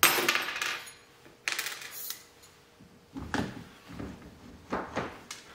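Clicks, clinks and rustles of small hardware being handled: a new threaded pin from a jet-intake fin kit being picked up and fitted into the pin hole of a plastic (poly) outboard jet intake shoe. A handful of separate sudden sounds come a second or so apart.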